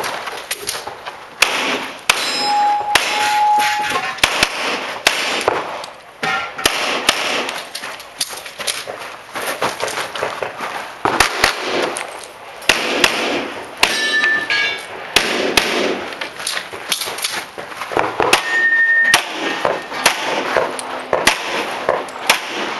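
Handgun fire in quick strings during a timed practical-shooting stage, with bullets striking steel targets that clang and ring briefly.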